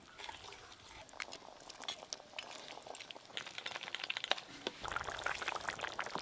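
Thin fish curry with gourd greens bubbling in a wok on the boil, a busy crackle of small bubbles that grows denser and louder about five seconds in.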